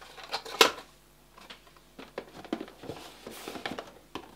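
Small handling noises at a desk: a sharp click about half a second in, then scattered soft taps, clicks and rustles, as of items and packaging being moved about.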